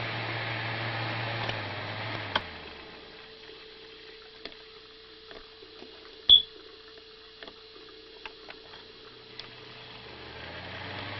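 Sunbeam Blizzard electric fan running, switched off with a click about two seconds in, its motor hum falling away as it spins down. A few light clicks and one sharp click follow in the quieter stretch. Near the end the motor starts again and its hum rises back up.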